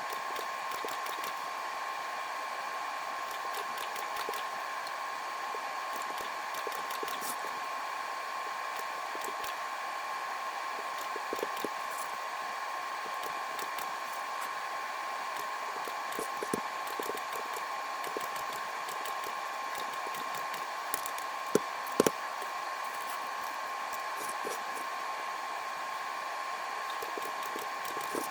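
Steady whirr of a small electric blower or fan with a constant whine, under scattered light clicks and taps of tools on a workbench; two sharper knocks come about three quarters of the way through.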